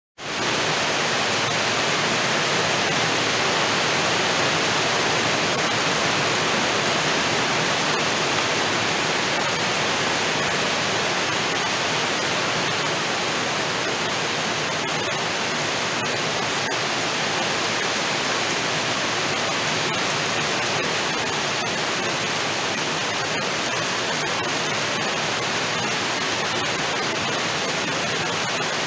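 Heavy rain falling steadily, a dense even hiss that starts suddenly.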